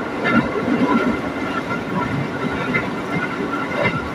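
Electric commuter train running at speed, heard from inside the carriage: a steady rumble of wheels on track with a thin, steady high whine, and two clicks as the wheels pass rail joints, one near the start and one near the end.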